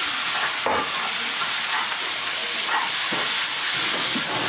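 Leafy greens stir-frying in a hot wok over a gas burner: a steady hiss and sizzle, with a few brief scrapes of a metal spatula against the pan.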